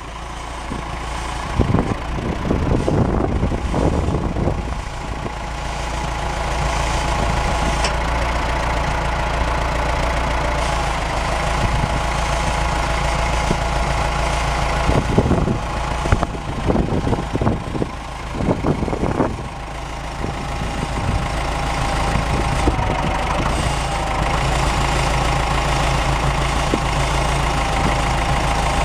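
Ford 6710 tractor's four-cylinder diesel engine running steadily as the tractor is driven around, with short bursts of wind buffeting the microphone about a second in and again past the middle.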